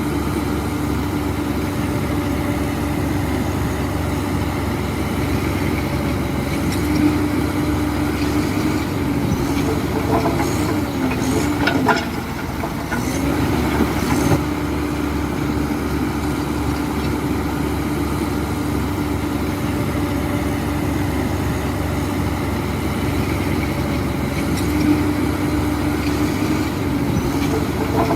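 Heavy diesel engine of an earthmoving machine running steadily, its pitch sagging and recovering about halfway through and again near the end as it takes load. A few sharp metallic clanks come around those moments.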